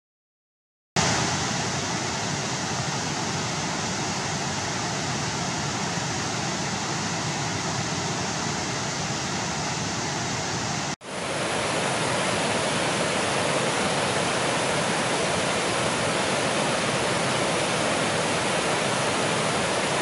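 White water rushing over a river weir and rapids: a steady rush that starts about a second in, breaks off for an instant near the middle, then carries on.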